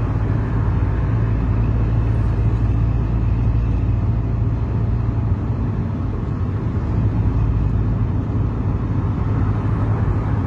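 Steady engine and road noise heard from inside the cab of a Hyundai HR diesel light truck on the move, a constant low drone that holds even throughout.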